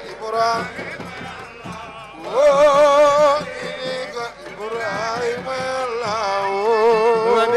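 A man singing a solo Islamic devotional chant through a microphone, melismatic and unaccompanied. He holds long notes with a wide vibrato and swoops up in pitch about two seconds in.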